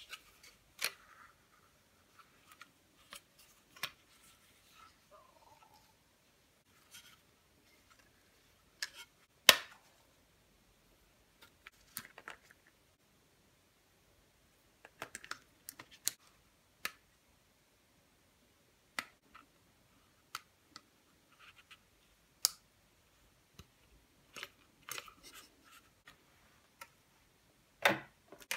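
Hard plastic clicks, taps and light knocks as the parts of a toy quadcopter are handled and snapped together: propellers, prop guards and battery. The clicks come singly and in short clusters with pauses between, the loudest knock about nine seconds in and another cluster near the end.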